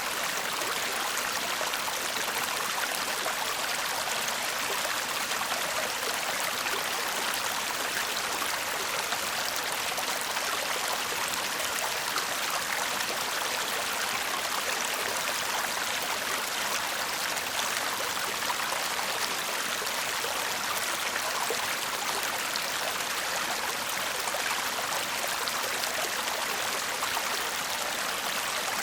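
Shallow stream babbling and trickling steadily, an even splashing rush that carries on without a break.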